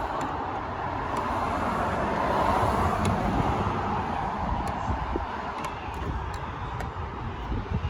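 Steady road traffic noise that swells and eases, with a few faint light clicks of a screwdriver working on the lock parts inside the car door.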